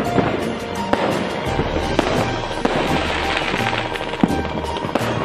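Fireworks going off: a dense run of sharp pops and crackling from aerial shells and firecrackers, with music and a steady bass beat playing underneath.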